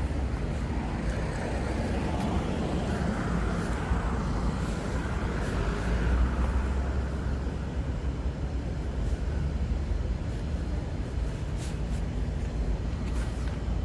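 Evening street ambience: steady traffic noise, with a vehicle passing close by in the first half, swelling and fading away, over a constant low rumble.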